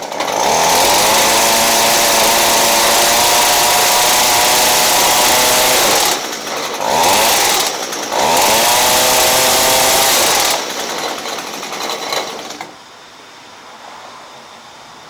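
Echo SRM230 extended-reach hedge trimmer's small two-stroke engine run at full throttle to work freshly pumped grease into the blade gearbox, with the throttle let off twice, around six and seven and a half seconds in, and opened again. Near the end it drops to a lower speed and then cuts off.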